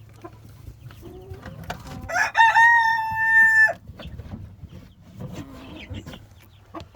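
A rooster crowing once, a single call of about a second and a half starting about two seconds in, rising then held level before breaking off, with hens clucking softly around it.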